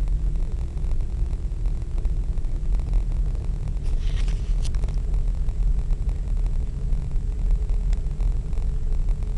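Steady low rumble of a moving vehicle's road and wind noise, with a brief hiss about four seconds in and a couple of faint clicks.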